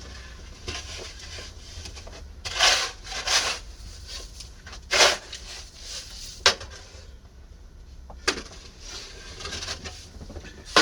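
Snow shovel scraping through snow in a few separate strokes, each a short rasping scrape.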